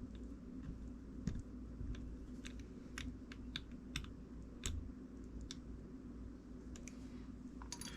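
Faint, irregular small clicks and taps of metal fishing-reel parts and a small screwdriver being handled during reassembly of the reel. The clicks come most often in the middle few seconds.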